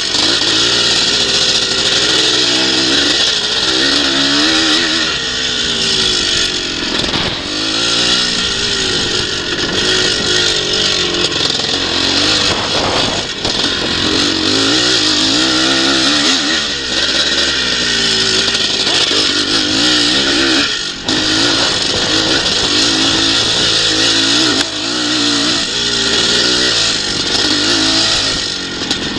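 Twinshock motocross motorcycle's engine being raced round a dirt track, its pitch climbing and dropping over and over as the throttle is opened and shut every second or two.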